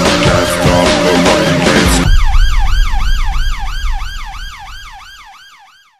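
Rock music cuts off about two seconds in, replaced by a police siren in a fast yelp, rising and falling about two and a half times a second over a low rumble, fading away to nothing near the end.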